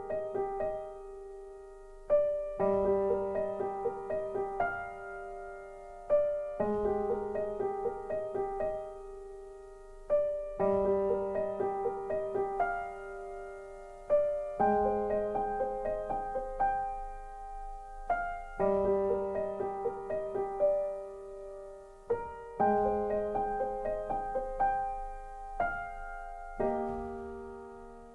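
Background music: slow, gentle solo piano, phrases of decaying notes starting about every four seconds.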